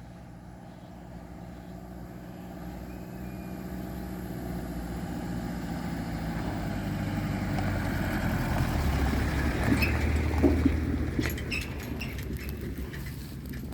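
Car engine and tyres growing steadily louder, loudest about ten seconds in, then easing off, with a few sharp clicks near the end.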